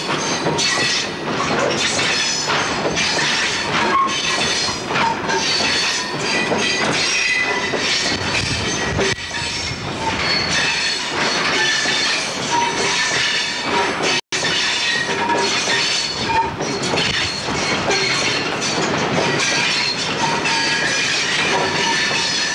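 A freight train of loaded bogie hopper wagons rolling past close by: wheels clattering over the track, with high-pitched squealing from the wheels throughout.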